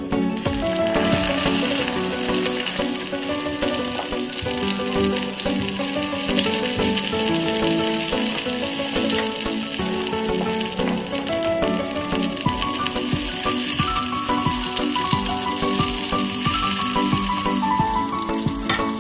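Food sizzling as it fries in a pan: a steady crackling hiss, with background music underneath.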